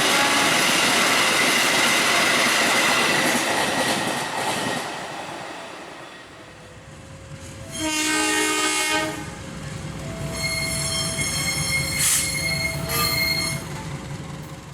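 A train passing close and loud, its running noise fading away over a few seconds. About eight seconds in, a locomotive horn sounds a blast of about a second. Fainter steady high tones over a low rumble follow.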